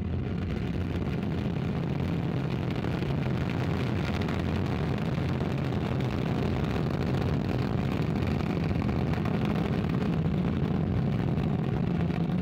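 Ariane 5 ECA rocket lifting off on its two solid rocket boosters and Vulcain main engine: a steady, dense rumble, heaviest in the low end, slowly building in loudness.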